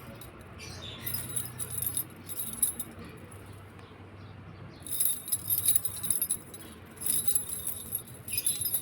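Small metal bell jingling in short, irregular spurts, with longer shakes about five and seven seconds in.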